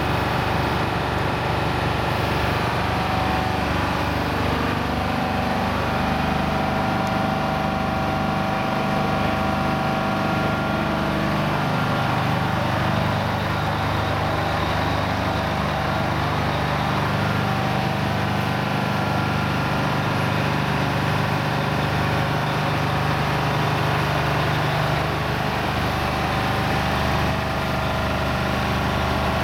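Heavy-haul truck's diesel engine running steadily at low revs as the rig crawls along with an oversized load.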